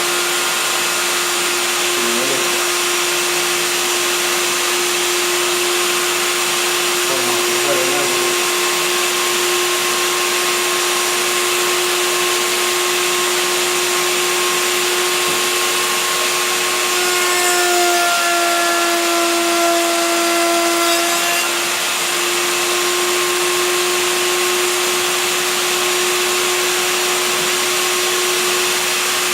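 Router in a router table running steadily with an even, high motor whine and fan rush. About 18 seconds in its pitch drops slightly for a few seconds as the bit takes load cutting wood, then recovers.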